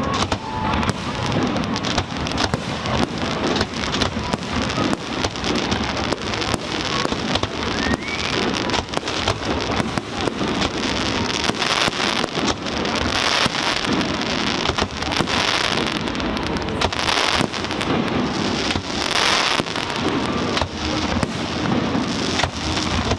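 Fireworks display: a dense, continuous crackle of many small rapid reports, with louder cracks scattered through it.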